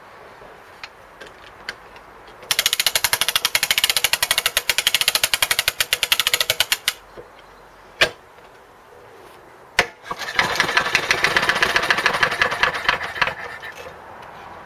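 A choked, freshly primed Briggs & Stratton lawnmower engine spun over by its wind-up spring starter: two spells of rapid, even chuffing of a few seconds each, the engine turning over without catching, with sharp clicks between them.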